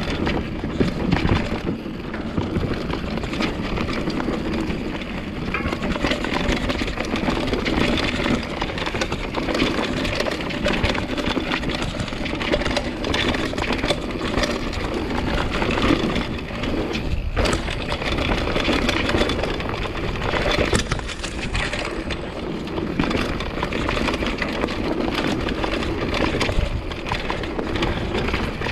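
Mountain bike rolling fast down a dirt trail: continuous tyre rumble on the ground with the rattle of the bike over roots and bumps, and a couple of sharp knocks past the middle.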